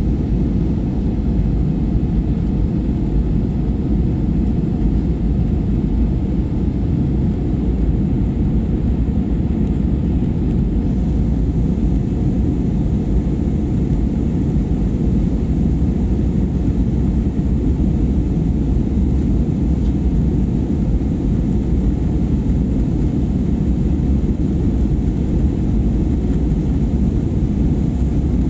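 Steady low rumble of a jet airliner's cabin noise, the engines heard from inside the passenger cabin, unchanging throughout.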